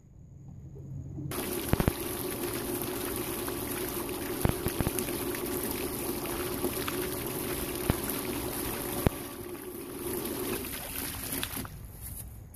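Floating pool fountain spraying, its water splashing down onto the pool surface in a steady rush that starts about a second in, with a steady low hum under it and a few sharp clicks. The spray cuts off near the end.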